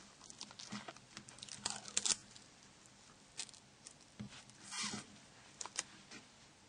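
Faint handling noises from a Nokia 7270 flip phone being handled: scattered small plastic clicks and brief rustles, with a cluster of louder clicks about two seconds in and another rustle near five seconds.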